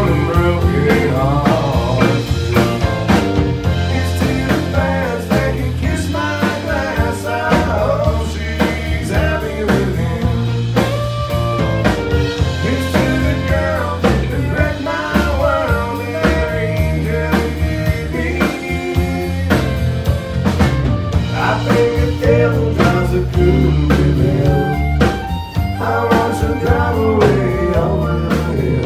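Live country band playing an instrumental break: fiddle, acoustic and electric guitars and a drum kit, with continuous sliding melody lines over a steady beat.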